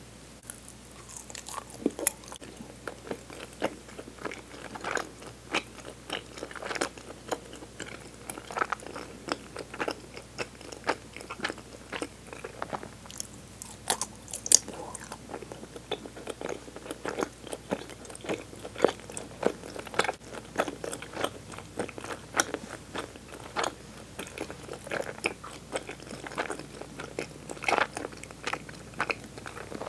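Close-up chewing and biting of suama, a soft pink Japanese rice-flour sweet: a dense, irregular run of short, sharp mouth clicks.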